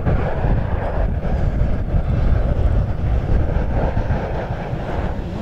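Jet noise from four BAE Hawk Mk.51A trainers flying past in formation, their Adour turbofans making a loud, steady sound, with wind buffeting the microphone.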